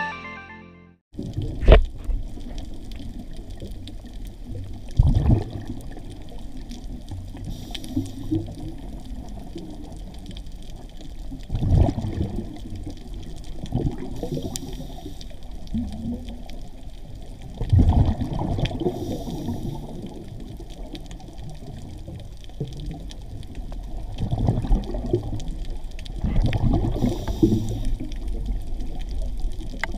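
Underwater ambience from a scuba diver's regulator: exhaled bubbles gurgle out in bursts about every six seconds over a steady low underwater rumble, with a faint hiss of inhalation between them.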